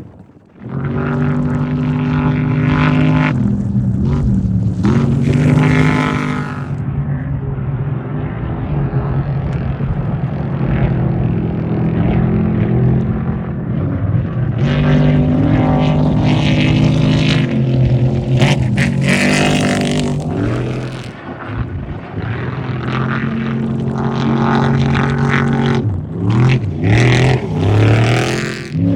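Off-road race trucks and buggies running hard past one after another, engines held high in the revs with sudden steps in pitch as they shift and lift off the throttle. Near the end the revs rise and fall quickly several times.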